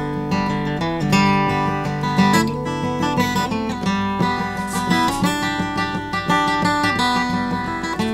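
Background music: an acoustic guitar picking and strumming a tune.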